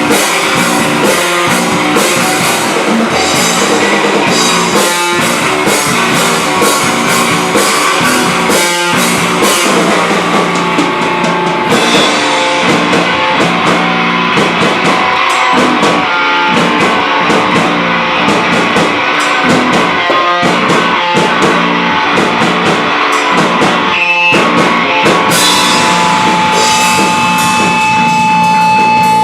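Rock band playing loud and live, with drum kit and electric guitar, no singing. In the last few seconds a steady high note is held over the band.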